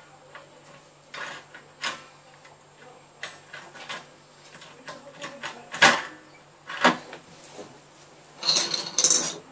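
Clicks and knocks of the water heater's heating-element flange plate being pushed up and worked over its mounting studs by hand, with the sharpest knocks about six and seven seconds in and a rough scrape near the end.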